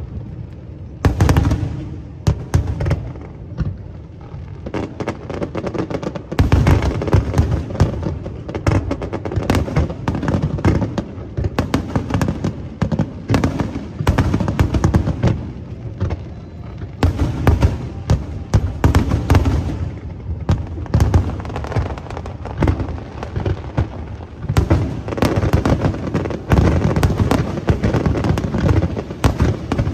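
Aerial fireworks bursting in rapid volleys of bangs and crackles, with a couple of short lulls and heavier barrages after about six seconds and again near the end.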